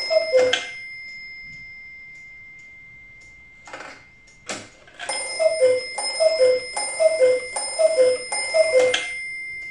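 Black Forest cuckoo clock striking: the bell rings and the cuckoo calls once near the start, the half-hour strike. Then come a couple of sharp knocks, and from about five seconds the bell rings again with six two-note cuckoo calls in a steady rhythm, the cuckoo counting the hour.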